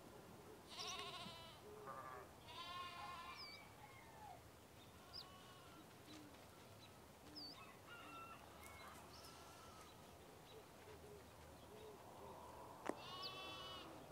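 Faint bleating of livestock: a few wavering, quavering calls about a second in, near three seconds and near the end. Short high bird chirps come in between, and a sharp click sounds just before the last bleat.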